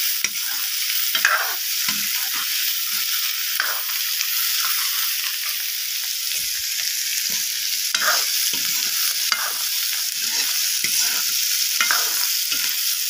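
Diced siudi stem frying in hot oil in a metal kadai, with a steady sizzle. A ladle scrapes and stirs through it every second or two.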